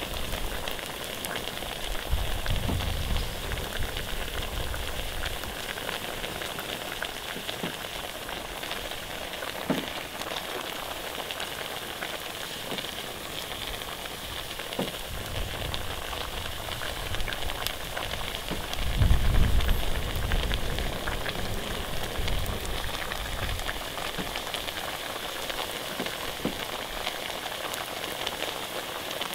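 Pork frying over a fire: a steady sizzle of meat in hot fat with faint pops. A low rumble comes twice, the louder one about two-thirds of the way through.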